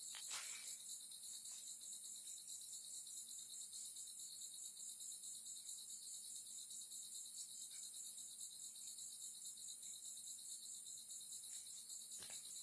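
A chorus of night insects trilling steadily in rapid, even pulses, high-pitched, with a short click near the start.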